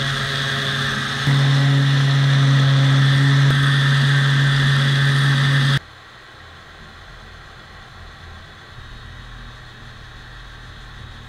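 Handheld DeWalt random orbit sander running while a small cedar drawer is pressed against its pad. Its hum drops in pitch and grows louder about a second in as the work loads it. It cuts off abruptly about halfway through, leaving only a faint steady hiss.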